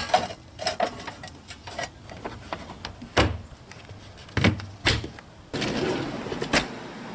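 A series of knocks and clunks as a metal pot of wood chips is set down on the heating element inside a wooden smoker box and the smoker's wooden door is shut and its metal latch fastened. Near the end, a clatter from a kitchen drawer full of utensils.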